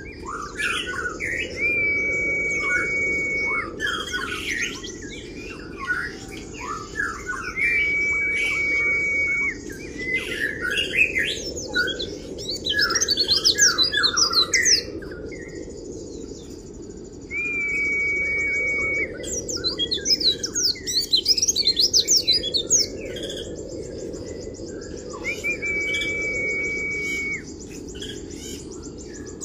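A caged pleci (white-eye) singing without pause in the rapid, fine twittering 'kriwik' style: quick high chirps and trills run together, broken every several seconds by a long level whistled note.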